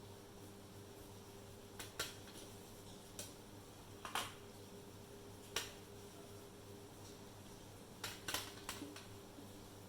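Scattered sharp taps and clicks of small art tools being handled and set down on a table, singly and in quick little groups, over a faint steady hum.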